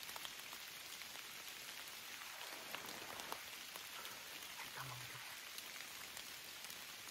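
Faint light rain pattering on leaf litter: a steady soft hiss scattered with small drop ticks.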